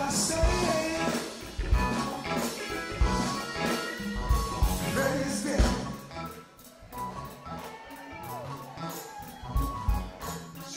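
Live band playing soul music: bass drum on the beat, hi-hat, guitar and bass with a singing voice. The band drops back and gets quieter about six seconds in, and the drum beat comes back near the end.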